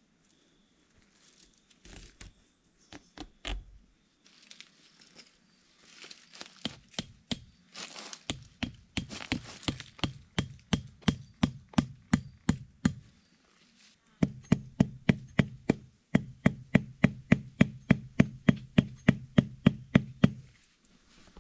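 A wooden tent stake being driven into the ground with an axe: a steady run of knocks about three a second, in two runs with a short pause between, the second louder.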